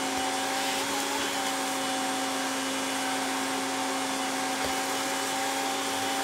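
Vacuum cleaner running steadily through its hose as the nozzle is worked over a cardboard floor sheet: an even rushing hum with a constant whine.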